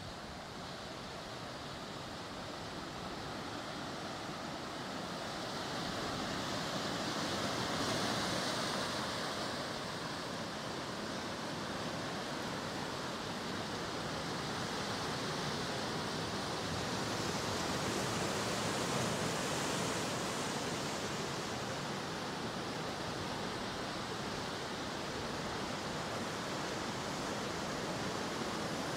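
Ocean surf: a steady wash of waves that swells about eight seconds in and again around eighteen to twenty seconds.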